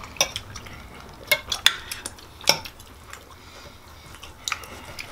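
Knife and fork scraping and clinking against plates while a steak is cut, with about five sharp clinks spread through the stretch.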